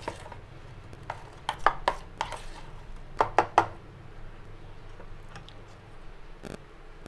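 Steel spoon beating a thick wheat-flour and jaggery batter in a stainless steel bowl, with sharp clinks of the spoon striking the bowl's side in two quick runs of three or four, about a second and three seconds in.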